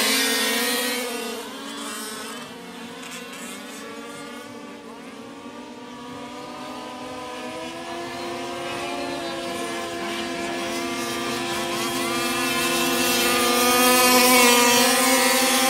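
Several 1/5-scale RC race trucks running laps, their engines buzzing at differing pitches. The sound drops away a couple of seconds in, then builds back up and is loudest near the end.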